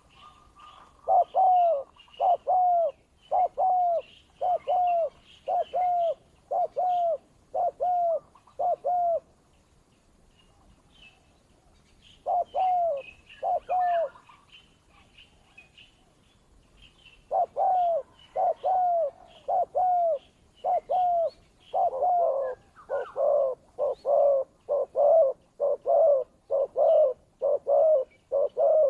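Spotted doves cooing in quick repeated short notes as a decoy and a wild dove challenge each other. About ten notes come in the first nine seconds, then a pause, then a faster, louder series of about two notes a second from the middle to the end. Small birds chirp faintly in the background.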